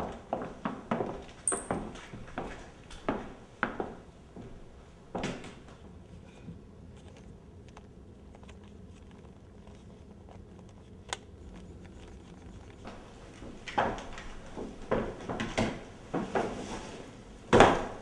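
A series of short knocks and thumps in a small room. Several come close together in the first few seconds, then after a quiet stretch more follow, the loudest one near the end.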